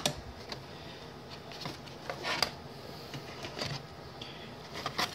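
Scattered light clicks and taps of bare fiberglass circuit boards being handled in a cardboard box, with a sharper click at the start.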